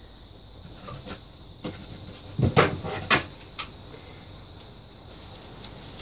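A few short knocks, then a louder cluster of clatters about halfway through, as a metal offset spatula is picked up and handled over a plastic tray.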